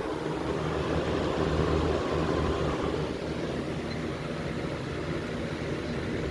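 Vintage Montvale (rebadged Air King) 16-inch box fan running on high speed: a steady rush of air from the blades over a low motor hum, smooth-running on a cold start just after the motor was oiled.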